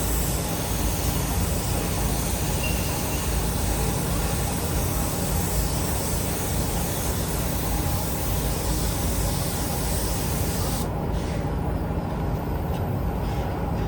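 Spray gun hissing steadily as paint is sprayed, cutting off sharply about eleven seconds in, over a steady low rumble that continues; a few faint clicks follow near the end.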